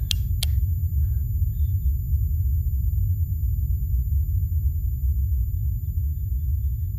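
Two sharp clicks of wall switches being flipped right at the start, over a steady low rumbling drone.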